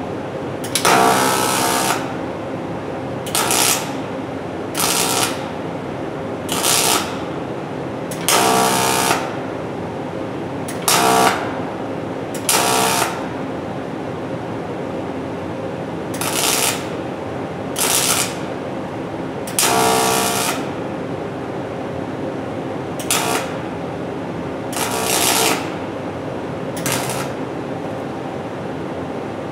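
Pulse-on-pulse MIG (GMAW) arc welding on thin aluminum, about a sixteenth of an inch thick. The arc buzzes in about thirteen short bursts of half a second to a second each as the crack is welded in short runs, over a steady hum.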